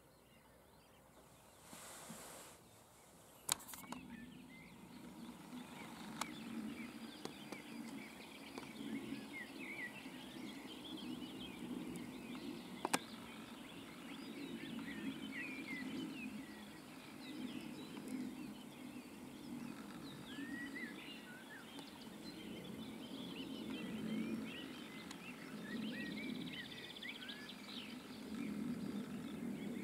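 Many birds singing and calling, short chirps and whistles overlapping, over a low steady rumble. A single sharp click sounds about three and a half seconds in.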